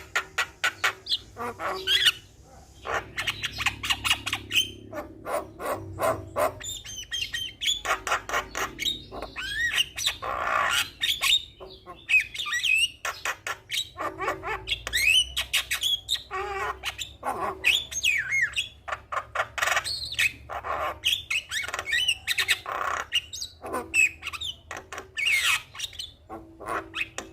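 Javan myna singing in full voice: a rapid, continuous jumble of harsh rasping clicks and squawks mixed with short gliding whistles, with a brief pause about two seconds in.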